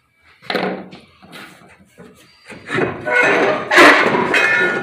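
Steel roll-cage tube knocking and scraping against the car's sheet-metal body as it is worked into place. A few light knocks first, then from about two and a half seconds in a louder run of metal clattering with some ringing.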